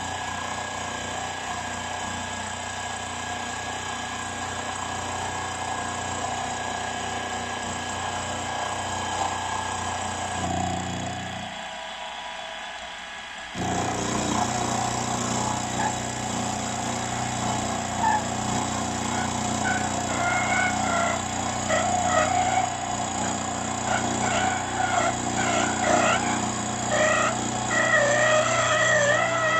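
Milling machine running, its end mill cutting across the face of an aluminium casting, a steady machine whine that drops out briefly just before the middle and then resumes. From about two-thirds through, a dog whines over it in wavering, rising-and-falling cries that grow louder near the end.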